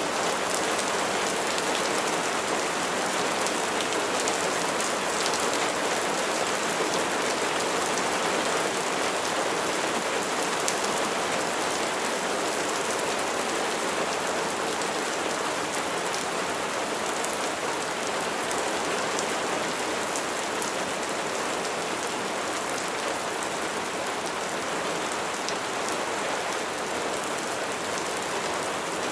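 Steady rain falling on a surface, with raindrops ticking throughout.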